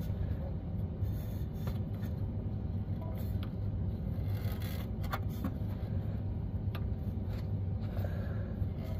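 Scattered faint clicks and scrapes of pliers and fingers working stuck rubber fuel hoses and their clamps loose from metal lines, over a steady low hum.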